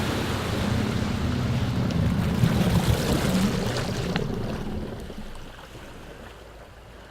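Jet ski engine running over splashing water, fading away over about five seconds until only faint water noise is left.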